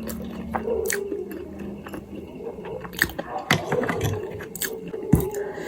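Close-up eating sounds: wet chewing and mouth smacks with sharp irregular clicks while potato momos and noodles are eaten, the clicks loudest about three and five seconds in.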